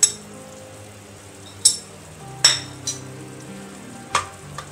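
Slotted steel spoon stirring soaked chana dal in hot oil in a metal pot: about six sharp clinks of the spoon against the pot over a low frying sizzle. Soft background music of held notes runs underneath.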